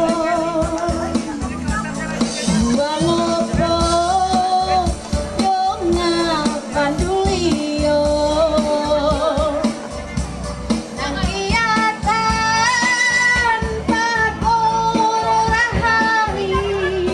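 A woman singing into a microphone over a backing track, amplified through a PA speaker, with long held notes in the melody.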